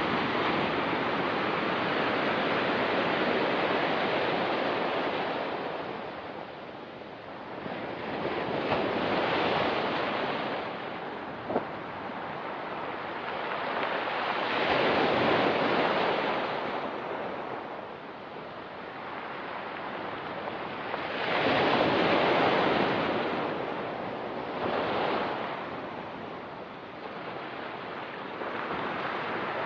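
Ocean surf on a rocky beach: waves break and wash in, swelling and ebbing every several seconds. A short sharp click comes about eleven seconds in.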